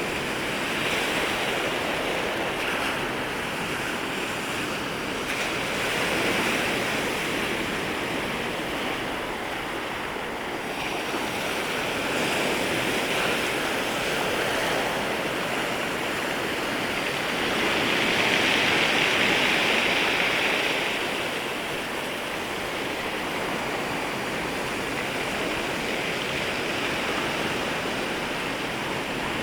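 Waves breaking and washing in at the water's edge, a continuous surf hiss that swells and eases with each wave, the largest wash about two-thirds of the way through.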